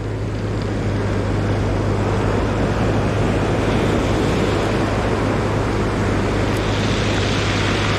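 Ocean surf washing up the shore in a continuous rush of noise, over a steady low rumble.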